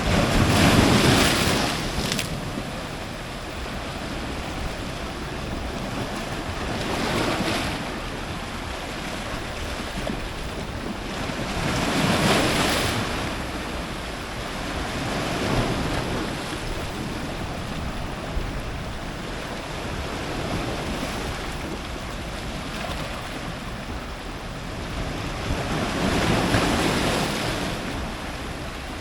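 Ocean surf breaking on rocks: a constant wash of foaming water with about five heavier wave crashes surging in and falling away, the loudest about a second in.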